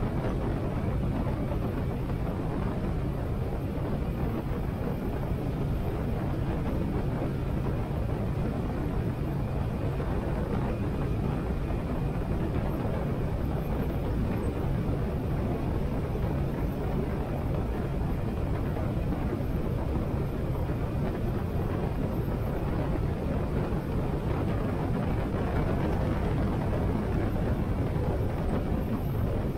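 Steady wind rush over a helmet-mounted action camera at riding speed, with a Harley-Davidson Sportster 883's air-cooled V-twin engine running evenly underneath.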